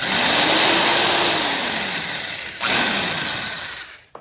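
Electric drill with a small bit boring a pilot hole into a wooden rifle stock: the drill runs steadily, stops briefly a little past halfway, runs again, then winds down near the end.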